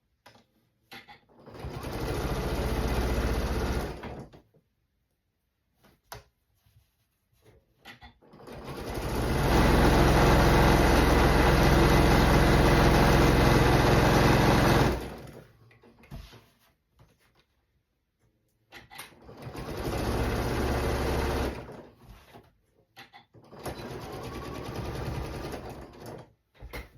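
Sewing machine stitching a seam joining quilt rows, running in several bursts, the longest about six seconds in the middle, with short clicks and pauses between.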